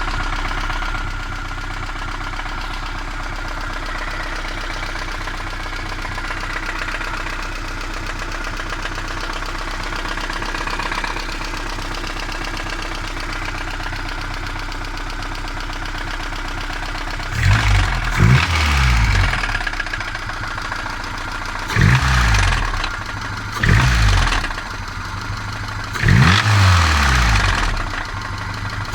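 VAZ 2108 four-cylinder petrol engine idling with a knock, then blipped several times from about halfway through, each rev rising and falling quickly. The knocking is taken for worn connecting-rod bearings, though the owner is unsure whether it is the valves or the piston pins.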